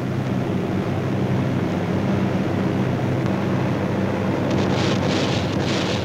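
Steady drone of a B-24 bomber's four radial engines, heard from inside the aircraft, with a crackling hiss joining about four and a half seconds in.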